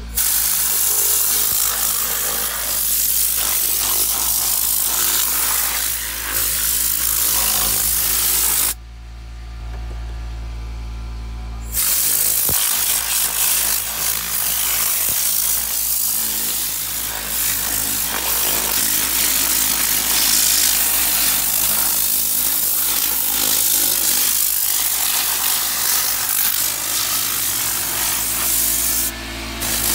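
Compressed-air interior cleaning gun with a solution bottle, blasting air and cleaner in a loud, steady hiss that cuts off abruptly for about three seconds and then starts again.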